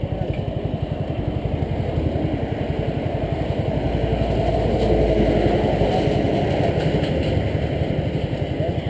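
Small motorcycle engine idling with a fast, even beat.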